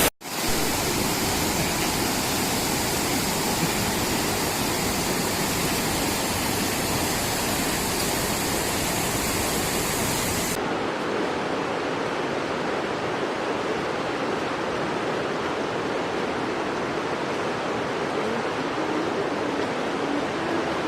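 Waterfall rushing: a steady, loud roar of falling water. About halfway through the sound turns duller, losing its hiss.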